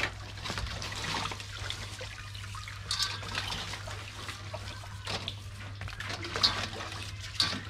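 Water splashing and trickling in a metal basin as shellfish are scrubbed by hand, with a few sharper splashes and clicks of shell through it.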